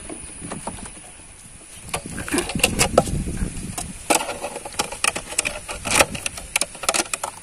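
Irregular knocks, clicks and scrapes as a mud crab is put down on a wooden boat's floorboards and pinned there with a plastic bottle. They start about two seconds in and are sharpest around the middle and near the end.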